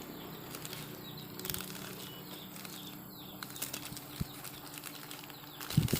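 Plastic courier packet handled by hand as it is being opened, giving a soft rustling with a few light clicks and a louder knock near the end.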